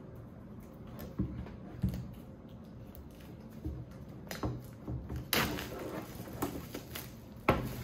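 Handling noises from unpacking a tablet case: scattered light knocks and clicks, a burst of rustling and scraping about five seconds in, and a sharp knock near the end.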